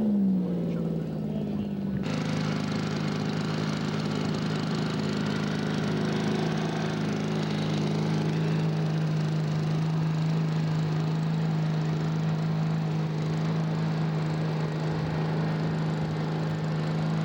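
Radio-controlled scale model aircraft engine throttled back, its pitch falling in the first second, then running steadily at a low setting.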